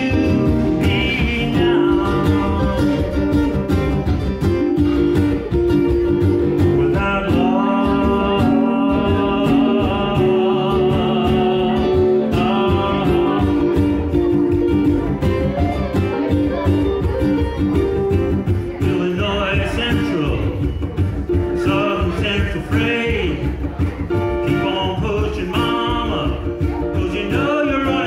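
Live guitar-accompanied song with singing, played by a duo; the music runs steadily throughout.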